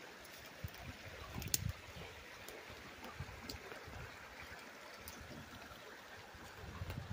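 Shallow mountain river running low over rocks, a faint steady trickle and rush of water. A few low thumps come through, with a sharp click about one and a half seconds in.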